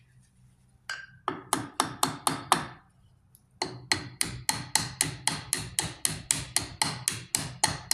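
Hammer tapping quickly on metal, about four blows a second, each with a short metallic ring. There is a pause of about a second near the middle.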